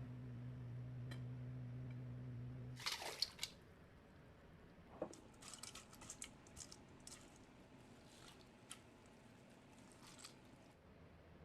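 Wet food being handled in the kitchen, squishing and dripping. A low steady hum stops about three seconds in. A brief burst of wet noise follows, then scattered small squelches and clicks.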